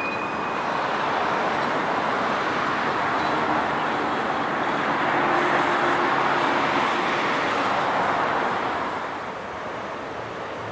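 Steady rolling rush of passing rail or road traffic that swells for several seconds and eases off near the end, with a brief high wheel squeal right at the start.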